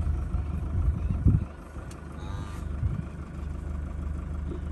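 A vehicle engine idling with a steady low drone, with a single low thump about a second in.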